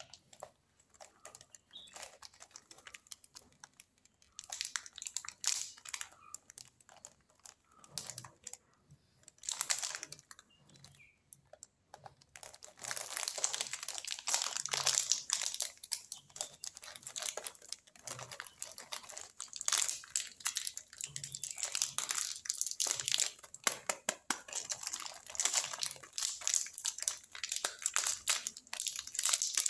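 Metallised plastic wrapper of a Parle Krackjack biscuit packet crinkling as fingers handle it. The crackling is light and scattered at first, then dense and continuous from about twelve seconds in, as the crimped end seal is picked open.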